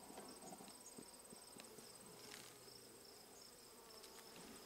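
Near silence with faint insect sound: the low hum of honeybees over an open hive frame, with a faint high, pulsing trill held steady throughout.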